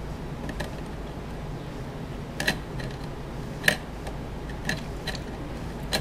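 A handful of small, sharp clicks and taps spread over several seconds, as a laptop processor is set down into its socket on a bare motherboard. A steady low hum runs underneath.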